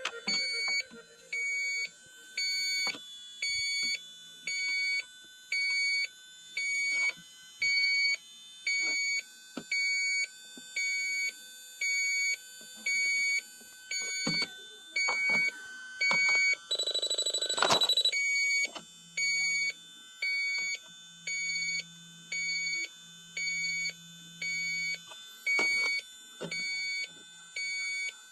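Electronic beeping, one high-pitched beep about every second and steady throughout, with a brief louder burst of noise about two-thirds of the way in.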